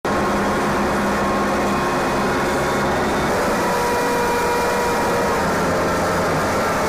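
Tracked armoured vehicle engines running steadily: a loud, even drone with steady whining tones over it. The tones shift about three seconds in.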